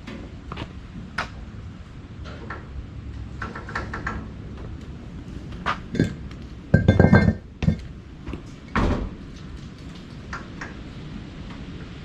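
Scattered metal clicks and clinks from handling work on a gas heater, with a loud ringing clatter about seven seconds in and another knock a little later.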